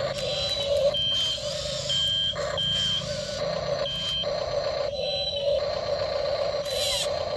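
A reversing-style warning beeper sounding four short, high-pitched beeps at uneven spacing over about the first four seconds, over a steady mid-pitched hum.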